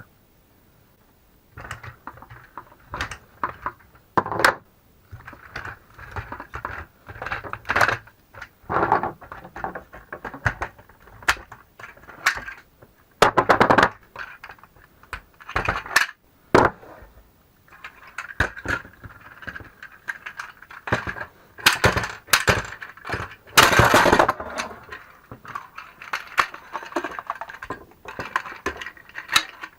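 C-Tug kayak and canoe trolley being taken apart in a hurry: its pins are pulled and the wheels and frame parts knocked apart, giving irregular clicks, knocks and clatters with short scrapes in between.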